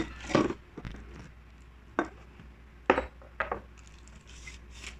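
Parts of an electric grill's stand knocking and clinking as they are handled and fitted together: a few sharp knocks, the loudest about two and three seconds in.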